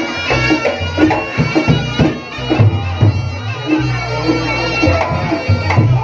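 Reog Ponorogo gamelan music: a reedy shawm (slompret) melody over sharp hand-drum strikes and sustained low gong tones.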